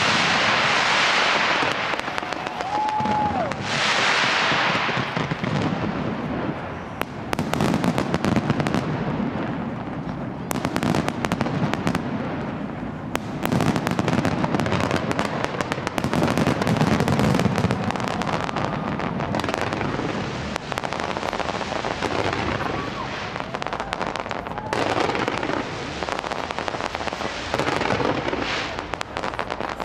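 Large fireworks display: dense rapid crackling and popping with loud hissing sprays of bursts, continuous throughout, and a short whistle about three seconds in.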